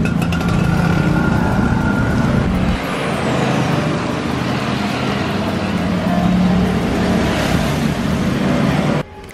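Hot oil bubbling and sizzling in a frying pan, over the low rumble of passing road traffic. The rumble eases about three seconds in, and everything drops off sharply near the end.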